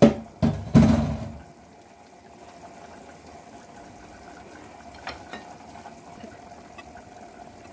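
A wooden spoon knocking against a ceramic serving platter three times in quick succession, then faint clicks as potato cubes are spooned onto lettuce, over a faint steady background noise.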